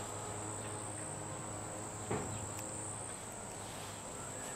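An insect chirring outdoors: one steady, high-pitched trill without a break. A single short knock about two seconds in.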